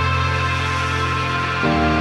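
Background music of held chords, moving to a new chord about one and a half seconds in.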